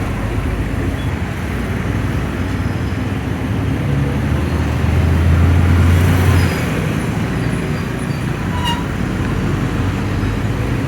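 Road traffic noise: a steady rumble of passing vehicles, with one vehicle's low engine hum swelling loudest as it passes close, about five to six and a half seconds in.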